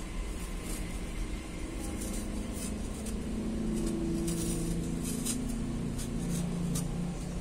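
A small knife paring the skin from apple wedges, heard as scattered faint crisp snicks, over a steady low droning hum that grows a little louder after about two seconds.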